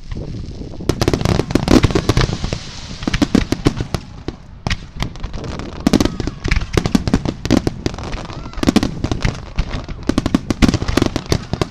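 Fireworks finale: aerial shells bursting in rapid succession, a dense run of sharp bangs and crackles with no break.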